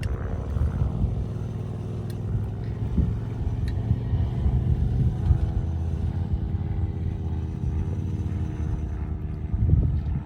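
Wind buffeting the microphone as a loud, gusting low rumble, with a steady droning hum under it through the middle.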